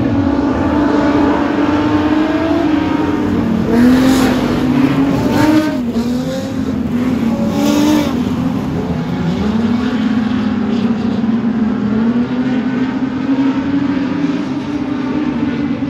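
Speedway production sedan race cars running on the track, their engines revving up and down over and over. Louder swells come about four and eight seconds in.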